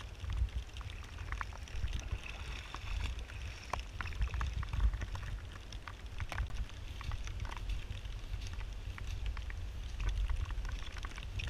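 Extremely heavy rain falling steadily, with many sharp taps of drops striking close by, over a constant low rumble.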